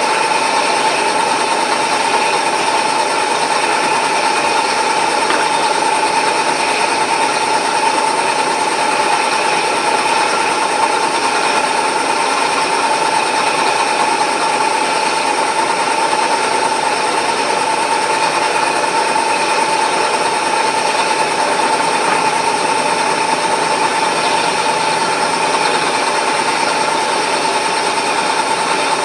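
Milling machine running steadily, a continuous machine noise with a steady whine.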